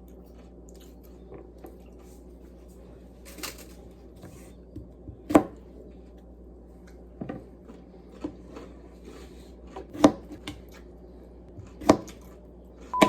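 Scattered sharp knocks and taps of objects being handled in a small room: about six separate hits, the loudest about five and ten seconds in.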